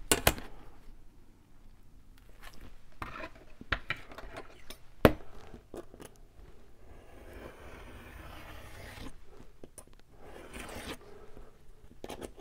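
A sheet of paper being cut down and handled: a few sharp taps and clicks, then a steady scraping cut lasting about two seconds just past the middle, and a shorter scrape near the end.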